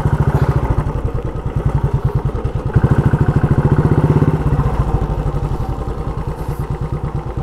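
Motorcycle engine idling with a steady, even pulsing beat. It gets a little louder about three seconds in.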